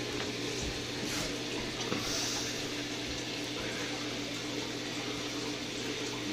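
Saltwater reef aquarium's water circulation: a steady rush of moving water under a steady low pump hum, with a briefly brighter hiss about two seconds in.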